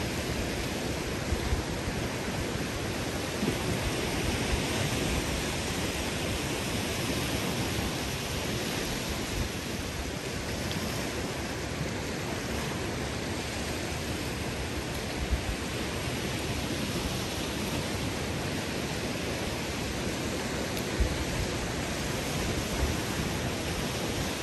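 Steady rushing noise of wind and surf on an open beach, with a few brief low thumps.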